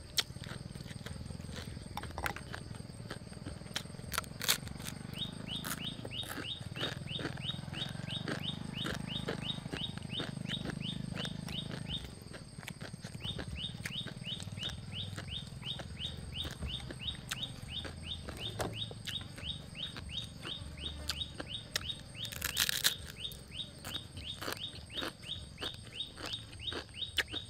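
Chewing of crunchy raw noodles, with a low murmur and a few sharp crunches, over a fast steady chirping of about four to five chirps a second that stops briefly around the middle.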